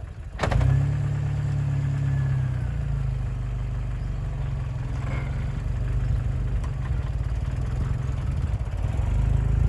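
Jeep Wrangler engine running at low, fairly steady revs as it drives off-road, with a short knock about half a second in.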